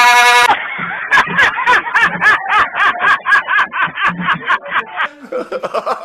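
Air horn blast cutting off about half a second in, followed by about four seconds of a rapid, high-pitched, pulsing vocal sound, around four to five pulses a second.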